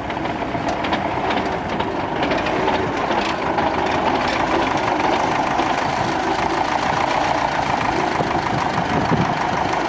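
Tractor engine running under load, pulling a PTO-driven MR bed-forming machine through the soil, with a steady, busy rattle and clatter from the machine's tines and forming-disc roller.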